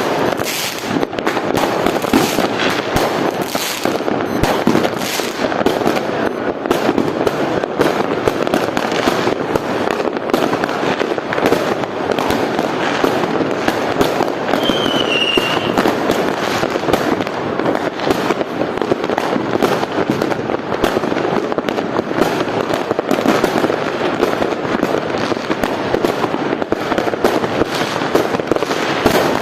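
Dense New Year fireworks display: many bangs and crackling bursts overlap without a pause. A short high whistle falls in pitch about halfway through.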